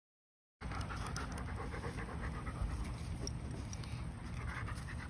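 German Shepherd panting close to the microphone, starting about half a second in, over a steady low rumble.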